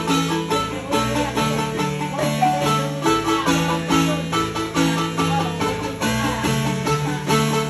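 Marimba music: a melody of rapid repeated mallet strikes over lower bass notes.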